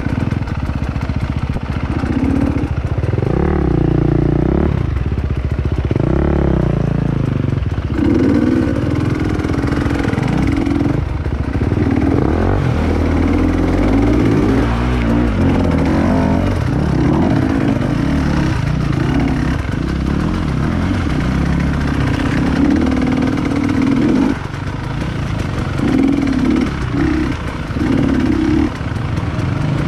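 Off-road trail motorcycle engine revving up and dropping back again and again as the throttle is worked on and off.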